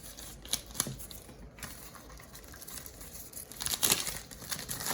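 Plastic wrapper of a small mystery squishy packet crinkling as it is cut with scissors and pulled open, in scattered clicks and rustles that grow busier and louder about four seconds in.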